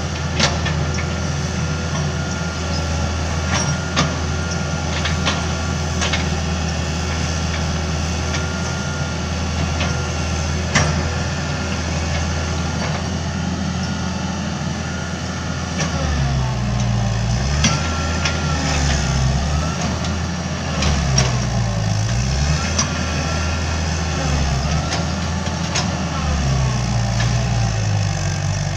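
Hitachi EX90 wheeled excavator's diesel engine running steadily, with a few sharp knocks in the first half. About halfway through, the engine note starts rising and falling again and again as the arm and bucket are worked, and a faint whine wavers with it.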